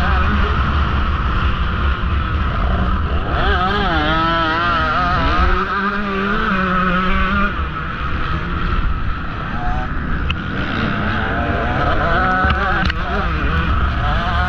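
KTM 150 XC-W two-stroke dirt bike engine revving hard under race throttle, its pitch rising and falling as the rider accelerates and shifts, with a short easing off about halfway through before it pulls again. Heavy wind rush on the microphone runs under it.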